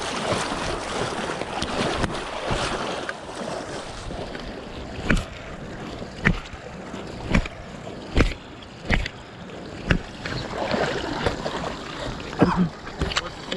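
Steady rush of river water close by, with some wind on the microphone. From about five seconds in, a run of sharp knocks and taps roughly once a second.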